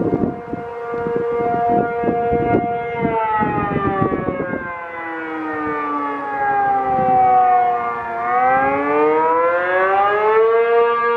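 ACA P-50 outdoor tornado siren sounding a two-tone chord: it holds steady, then about three seconds in its pitch slides down for several seconds before climbing back up and holding again. Gusts of wind buffet the microphone during the first few seconds.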